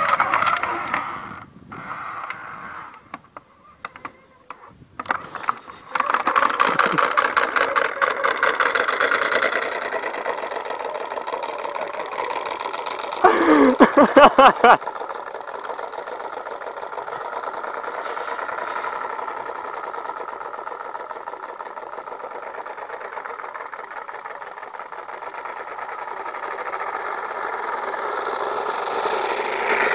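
Small engine on a motorised bicycle, sputtering and cutting out for the first few seconds, then catching and running with a steady buzz. It fades as the bike rides away, with a brief loud burst about halfway through, and grows louder again near the end as the bike comes back.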